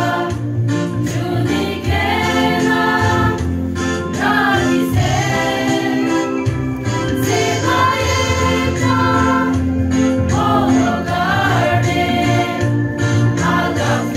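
A women's choir singing a gospel hymn together, in continuous sung phrases over steady low held notes.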